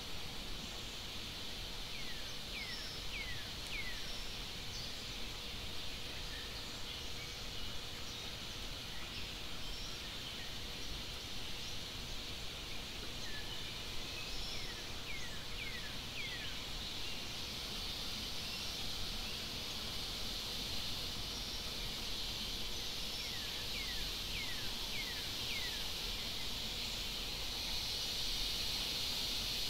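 Forest ambience: a steady high insect drone that swells toward the end, with a bird's short descending whistled notes coming in quick runs of four or five, three times.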